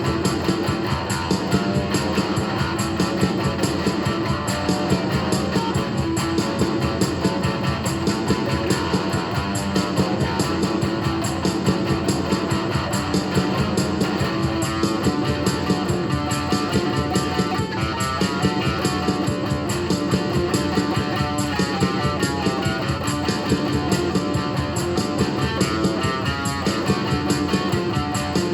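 Rock music with guitar and a fast, steady beat, playing continuously at an even level.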